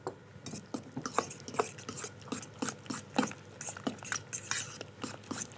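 A utensil stirring a thick aubergine, yogurt and tahini mixture in a stainless steel mixing bowl: quick scrapes and clinks against the metal, about three a second, starting about half a second in.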